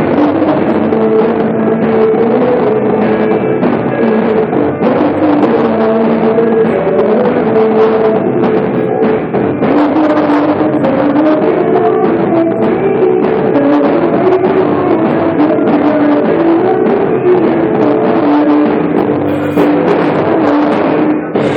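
Rock band music with drum kit and electric guitar playing an instrumental passage, loud and steady throughout.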